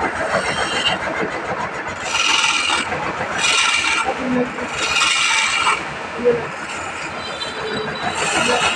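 Wood lathe spinning a wooden spindle while a hand-held chisel cuts it: repeated scraping, hissing cutting passes about a second long each, with short gaps between and a longer lull past the middle.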